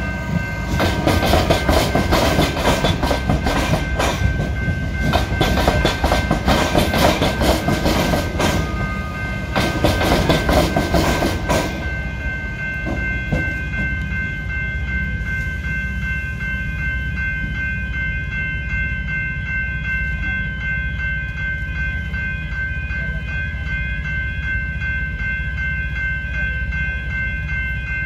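A suburban electric train passes, its wheels clattering over rail joints and the tram-track crossing for about the first twelve seconds, then the sound stops. Level crossing warning bells ring steadily at a fast even beat throughout, and are left alone after the train has gone, with a low hum underneath.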